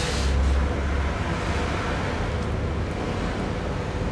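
Steady low rumbling background noise with an even hiss, heaviest in the first second.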